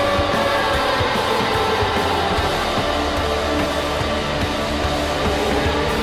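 San Diego Gulls 2020-21 goal horn, its steady tones fading about half a second in. The goal song follows: loud rock music with electric guitar.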